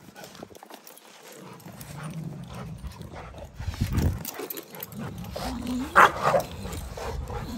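Rottweilers growling as they tussle over a plastic Jolly Ball, with one loud, sharp bark about six seconds in.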